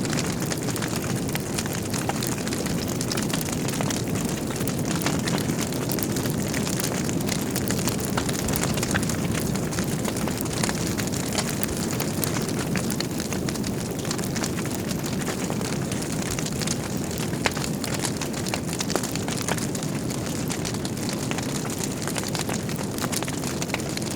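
Wood fire burning in a fireplace: a steady low rumble of flames with frequent small crackles and pops of burning logs.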